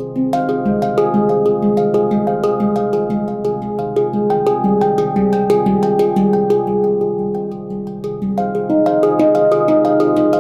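Veritas handpan tuned to an F low Pygmy scale, played with the fingers and hands in a quick, steady stream of strikes, the metal notes ringing on over one another. Near the end the playing briefly softens, then higher notes come in more loudly.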